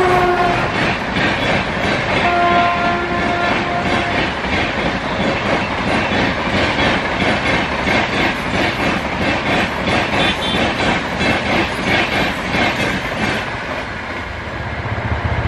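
Sealdah–Bikaner AC Duronto Express passing at high speed on electric traction. Its locomotive horn sounds briefly at the start and again for about a second and a half a couple of seconds in. Over it runs a fast, rhythmic clatter of coach wheels over the rail joints, which eases off near the end as the last coach goes by.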